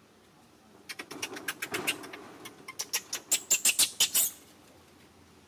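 Long-tailed macaques squabbling: a rapid run of sharp, short sounds, several a second, starting about a second in, growing loudest near the end and then stopping abruptly.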